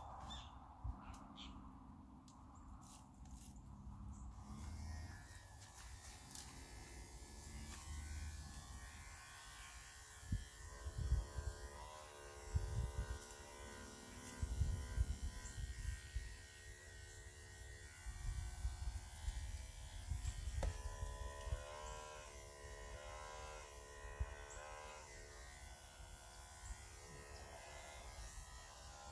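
Electric pet grooming clippers running with a steady buzz, switched on about four seconds in, trimming the fur on a Great Pyrenees' head.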